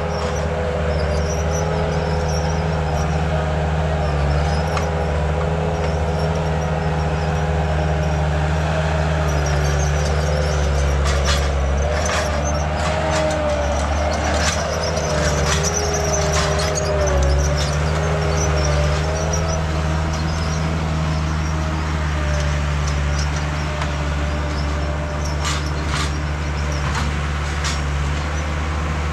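Heavy earthmoving machine's engine running steadily under load, with a wavering whine and scattered sharp clanks and clicks.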